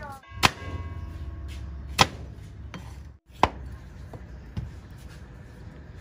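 Cleaver chopping through a peeled sweet potato onto a wooden chopping block: three sharp chops about a second and a half apart, then a couple of lighter knocks.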